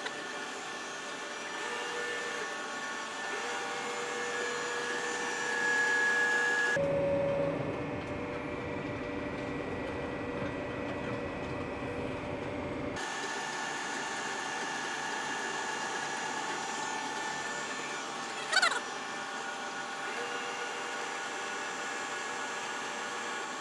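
Heavy-duty CNC vertical turning and boring mill running, a steady mechanical whine made of several held tones. About seven seconds in it gives way for some six seconds to a deeper rumbling hum with the high tones gone, then the whine returns. A brief sharp squeal comes near the end.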